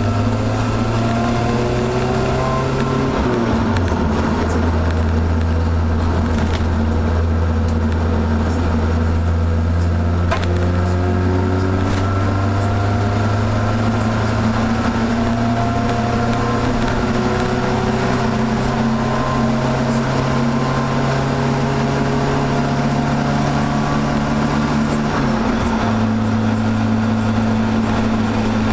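Volvo 245's engine and 3-inch exhaust heard from inside the cabin while driving. The engine note climbs slowly, dropping suddenly about three seconds in and again near the end as the gears are shifted up.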